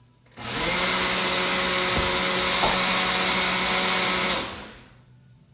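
Electric blender running at full speed for about four seconds, liquefying a green drink of leaves and grass. It starts about half a second in, holds a steady pitch, then winds down near the end.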